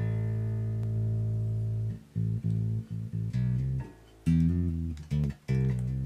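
Harley Benton PB Shorty short-scale electric bass with a passive precision pickup, plucked and played clean with the effects pedal on bypass: one low note held for about two seconds, then a string of shorter notes.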